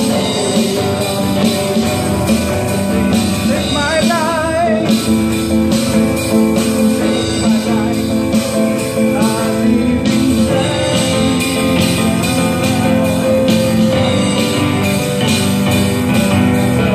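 A small live band playing a song: a man singing into a microphone, with acoustic guitar and electronic keyboard, amplified through speakers.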